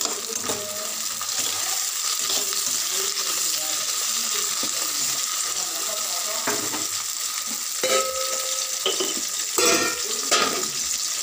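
Chopped onions, tomatoes, dried red chillies and curry leaves sizzling in hot oil in a pan as they are stirred and fried, with a few short scrapes against the pan in the second half.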